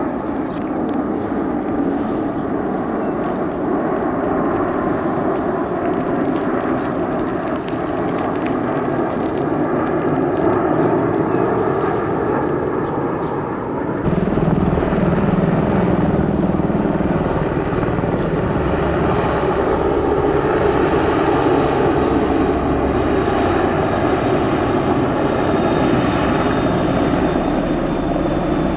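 Military jet aircraft flying over, a steady rushing engine noise that grows deeper and heavier about halfway through.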